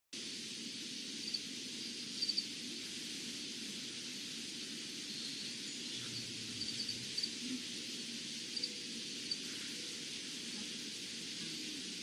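Steady high outdoor drone of insects, with a few short, high bird chirps scattered through it, singly or in quick pairs.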